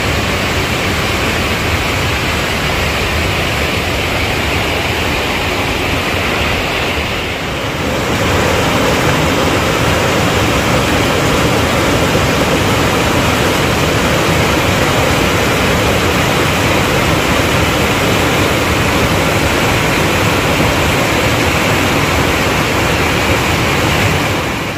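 Loud, steady rushing of water, with a brief dip about seven seconds in, after which the sound changes slightly.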